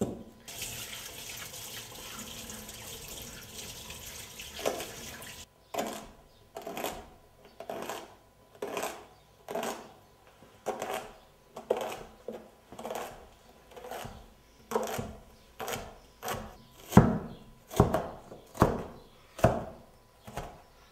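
A steady rushing noise for about five seconds, then a kitchen knife chopping onions on a cutting board in irregular knocks, roughly one or two a second, loudest near the end.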